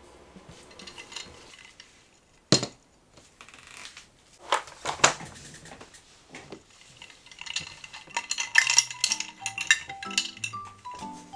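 Glass of iced drink clinking: a few sharp separate knocks of glass and ice, then a quick run of small clinks of ice cubes in the glass from about three-quarters of the way in. Light melodic background music comes in near the end.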